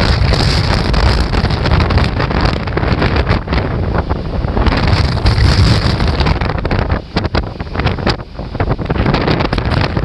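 Strong gusty typhoon wind buffeting the microphone over the rush of large waves breaking near shore, with the wind easing briefly twice near the end.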